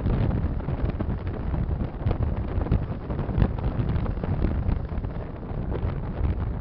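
Strong wind buffeting the microphone: a gusty, low rumbling roar with no steady tone.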